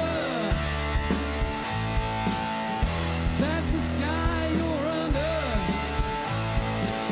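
Blues-rock band playing live: electric guitar, bass guitar and drum kit, with notes bending in pitch over a steady beat of drum hits about twice a second.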